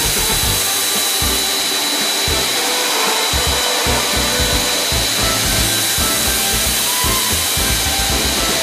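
An air-conditioner cleaning machine's motor running steadily: a loud, even hiss with a constant high whine.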